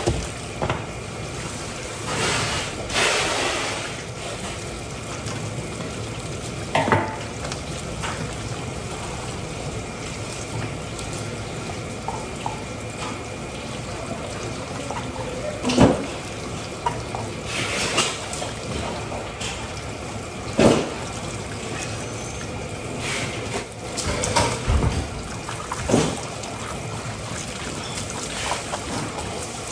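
Water running steadily, with a few sharp knocks and clatters.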